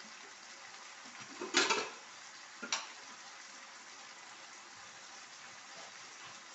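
A pot of dal cooking on the stove, giving a steady hiss. There is a short louder scrape or clatter about a second and a half in, and a sharp click just under three seconds in.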